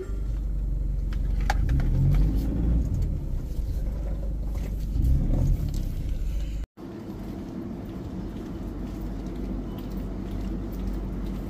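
A parked vehicle's engine idling with a steady low rumble, heard from inside the cab. After a sudden cut about two-thirds of the way in, it gives way to a quieter, steady hum from a shop aisle lined with refrigerated display cases.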